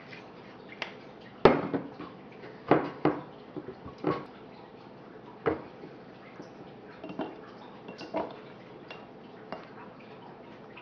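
Sharp knocks and clinks on a glass baking dish as it is oiled and the marinated roast is set into it. The loudest comes about a second and a half in; a few softer taps follow later.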